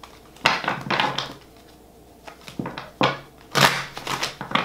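Tarot cards being shuffled and handled, in two short bursts of rustling and flicking, about half a second in and again from about three seconds in.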